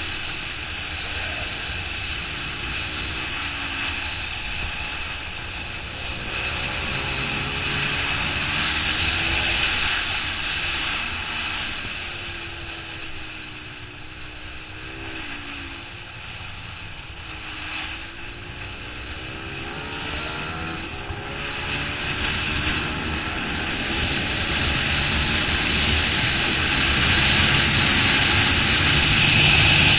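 Suzuki SV650's V-twin engine from an onboard camera at race pace, its revs rising and falling through gearshifts and corners under a steady rush of wind noise. It drops back around the middle while slowing for a corner, then pulls hard and gets louder near the end on the straight.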